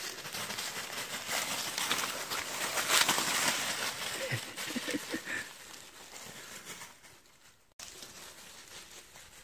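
Dry fallen leaves rustling and crunching under footsteps and dogs moving through the leaf litter. The sound is loudest about three seconds in and fades toward the end.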